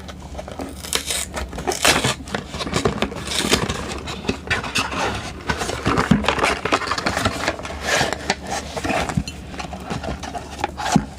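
Crinkling and rustling of a chocolate surprise egg's wrapper being handled and torn open, a dense run of crackles and rustles.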